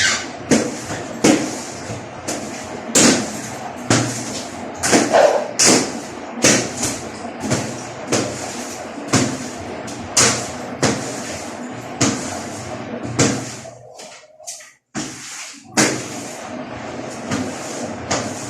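Repeated hard knocks and clunks, uneven and about one or two a second, from hands working on the washing machine, with a short break about three-quarters of the way through.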